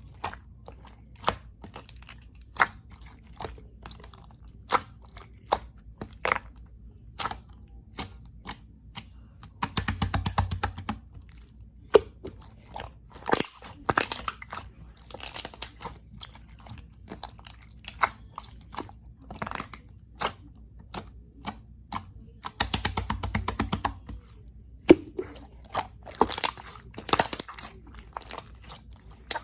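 Red slime being squeezed and pressed by hand, giving sharp wet pops and clicks at irregular intervals. Twice, about ten seconds in and again near two-thirds through, it gives a run of rapid, even crackling for a second or two.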